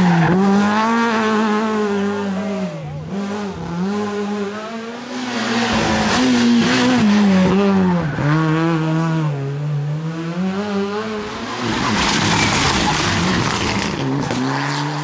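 Rally car engine revving hard through a hairpin, the pitch climbing and dropping again and again with each burst of throttle and lift, with tyres squealing as the car slides round. A few seconds before the end a burst of tyre and skid noise comes in, and a second car's engine follows it.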